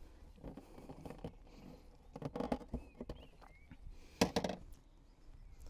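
Hands working a camper van's built-in inspection panel open: scattered light clicks and rattles, with a sharper knock about four seconds in.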